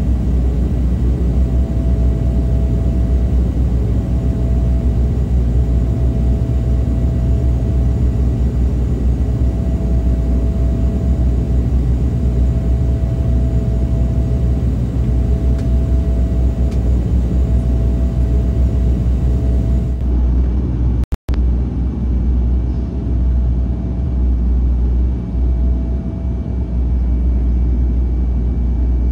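Cabin noise of a de Havilland Canada Dash 8-100's twin turboprop engines and propellers running steadily: a heavy low drone with a higher hum that swells and fades every couple of seconds. The sound drops out for an instant about two-thirds of the way through.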